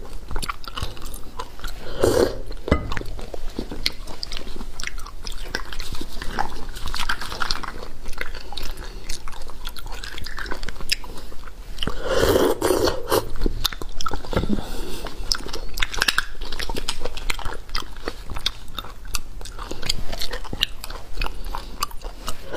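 Close-miked eating of braised beef bone marrow: wet chewing and sucking at the marrow, with many small sharp clicks and smacks throughout.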